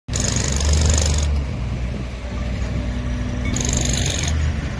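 Diesel engine of construction machinery running steadily at a roadworks site. A high hissing noise comes over it for about the first second and again briefly near the end.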